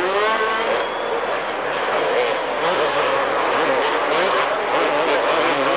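Several 250cc two-stroke supercross motorcycles racing, their engines revving up and down in overlapping, wavering pitches, with one climbing sharply about a second in.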